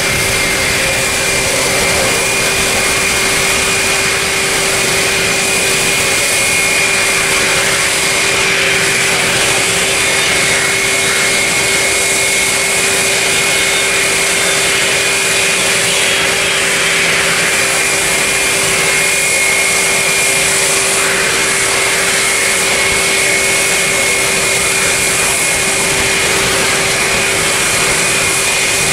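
Boeing 777's twin turbofan engines at takeoff thrust: a steady loud roar carrying a constant high whine, through the takeoff roll, liftoff and climb-out.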